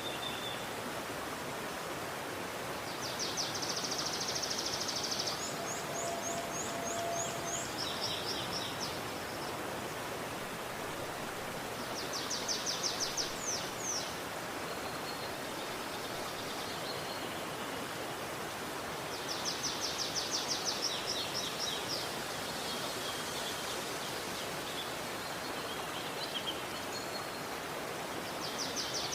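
Steady rushing flow of a river, with a small songbird singing fast trilled phrases several times over it.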